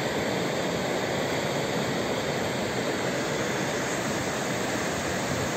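River running high and muddy after rain, rushing over rocks and through white-water rapids: a steady, unbroken rush of water.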